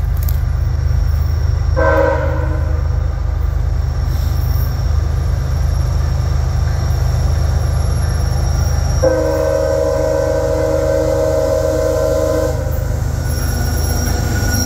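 CSX diesel freight locomotive approaching with a steady low engine rumble. It sounds its horn, a chord of several tones: a short blast about two seconds in and a longer one of about three and a half seconds from about nine seconds in.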